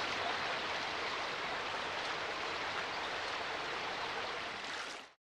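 River water rushing and splashing over rocks in a shallow stream, a steady hiss that cuts off suddenly near the end.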